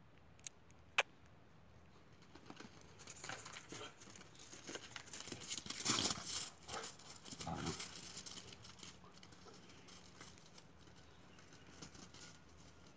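Two boxer dogs play-fighting in the snow: a scuffle of paws and bodies that builds, is loudest about six seconds in and dies away after about eight seconds. Two sharp clicks come just before it, near the start.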